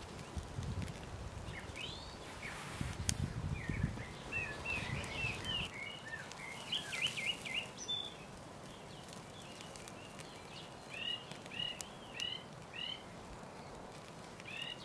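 Small birds chirping in the bush, a run of short, quick, high chirps in quick succession, with a few sharp crackles from the wood fire.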